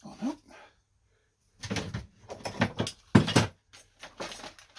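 Clunks and rattles of a TSDZ2 mid-drive motor being worked against its bottom-bracket casing, which it won't slide out of: one bolt is still holding it. The knocks come in a run from about one and a half seconds in, after a short hum of voice at the start.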